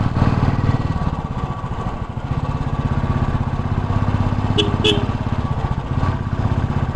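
Royal Enfield Bullet's single-cylinder engine running steadily at low road speed, heard from the saddle. Two short horn beeps come a little before the five-second mark.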